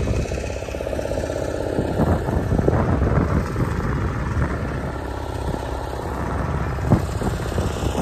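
A wooden tourist boat's engine running steadily under way, with a single short knock about seven seconds in.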